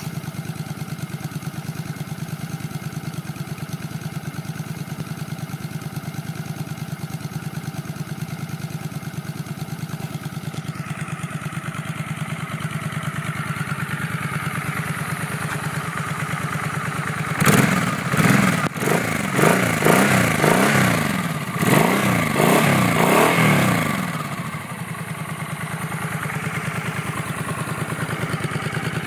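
Suzuki M800 (M50) V-twin motorcycle with a Fechter Drive (Falcon) aftermarket exhaust and Hypercharger air filter, idling with an even, loping beat, then revved several times in quick succession about two-thirds of the way in before settling back to idle.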